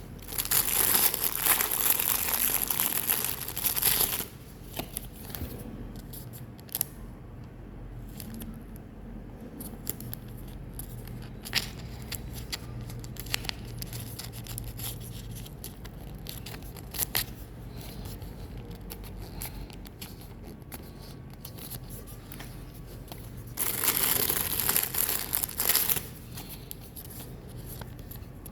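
Pokémon card booster pack wrappers being torn open: two long, noisy rips, one about a second in and one near the end. Light clicks and rustles of packaging and cards being handled come in between.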